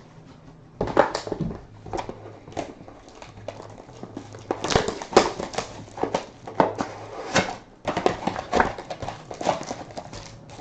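Trading cards and their packaging being handled: an irregular run of sharp clicks, taps and rustles as cards are shuffled and set down, with foil packs and a cardboard box worked at.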